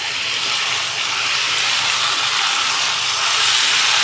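Shredded cabbage, peas and tomato masala sizzling steadily in a pan on a medium flame, the sizzle growing slightly louder.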